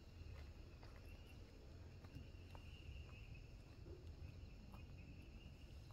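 Near silence with a faint, steady chirring of insects, probably crickets, and a low background rumble.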